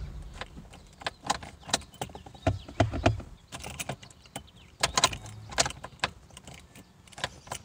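Car keys jangling on their ring with a string of irregular clicks, as the ignition key is turned off and worked in the lock, which won't release it.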